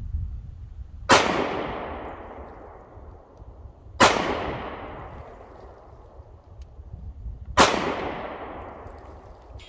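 Three single shots from a SAR K2 .45 ACP semi-automatic pistol, roughly three seconds apart, each dying away in a long echoing tail.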